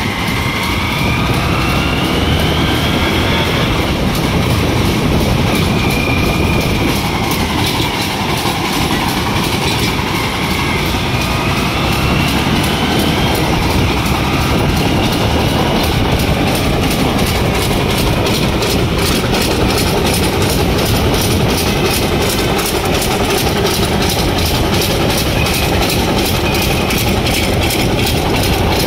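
Darjeeling Himalayan Railway steam toy train running along the track: a loud, steady rumble and rattle of the train with some clickety-clack. A few brief rising squeals come in the first few seconds and again about twelve seconds in.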